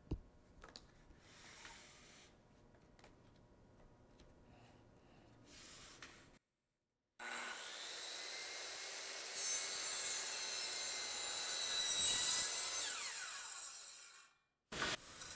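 Makita circular saw riding a guide rail through a small block of wood. Faint handling sounds come first; about halfway in the saw starts, grows louder as the blade cuts, then winds down and stops near the end.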